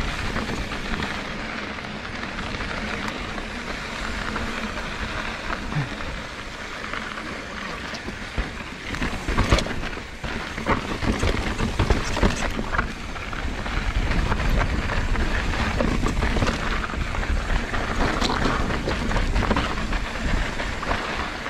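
Mountain bike being ridden over a rocky trail: tyres crunching over rock and gravel and the bike rattling, with scattered sharp knocks and a steady rush of wind on the microphone. It grows louder about two-thirds of the way through.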